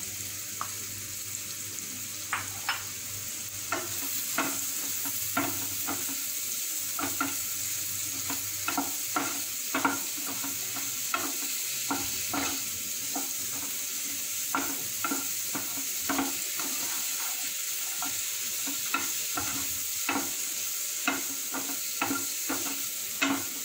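Button mushrooms sautéing in oil with a tomato-onion masala, sizzling steadily in a frying pan. A spatula stirs them, scraping and tapping against the pan at an irregular beat.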